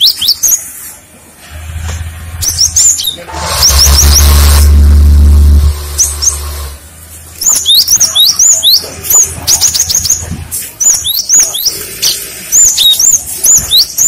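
Cinereous tit (gelatik batu) singing, a quick run of short, high, arched whistled notes repeated in bursts. A loud low rumble with hiss swells up a couple of seconds in and drops away about halfway through, drowning the song at its peak.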